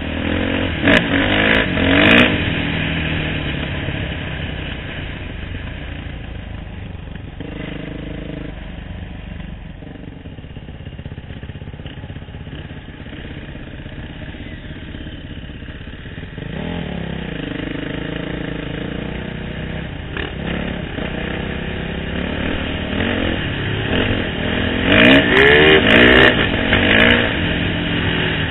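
Dirt bike engine running under way, revving up and easing off with the throttle. It quietens to a steadier drone through the middle, then revs hard again near the end.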